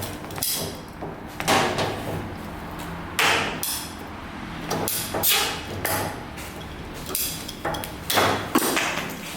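Irregular sharp knocks and clatter of hand tools during plumbing work: about a dozen strikes, spaced half a second to a second apart, some with a brief metallic ring.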